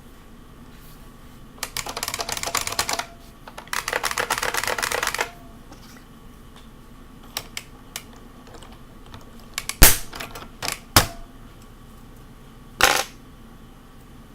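IBM Model M keyboard's buckling-spring keys being typed on: two quick runs of rapid keystrokes in the first half, then scattered single key presses, with three louder strikes in the second half.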